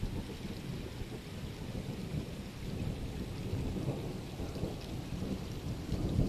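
Rolling thunder breaks in suddenly and rumbles on low and long over a steady patter of rain. It follows its lightning flash by about 19 seconds, so the strike was some six kilometres away.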